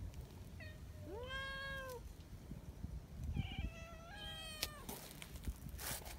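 A cat meowing: a short chirp, then one long meow that rises and falls, then two shorter meows in quick succession about three to four seconds in. A brief rustle comes near the end.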